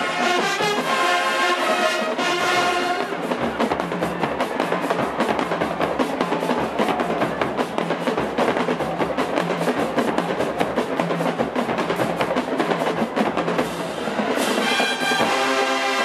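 Marching band playing: brass chords for the first few seconds, then a drum break of snare, tenor and bass drums with cymbals, and the brass comes back in near the end.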